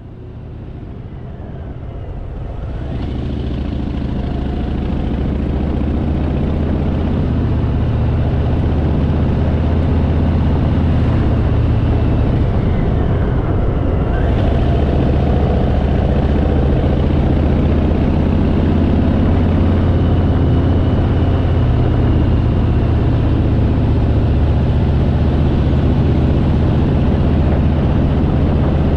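Harley-Davidson Fat Boy's V-twin engine running steadily while riding. It fades in over the first few seconds, then holds at a steady level.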